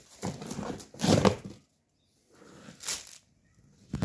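Cardboard box flaps and plastic packing rustling and crinkling as the box is opened by hand, loudest about a second in, with a second, shorter burst of rustling near the end.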